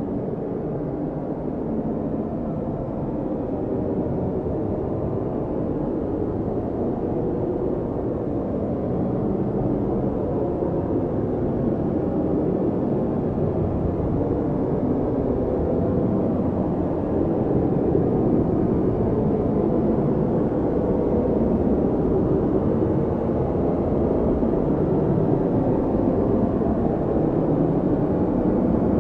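Strong blizzard wind blowing steadily, a low rushing noise that grows a little louder about halfway through.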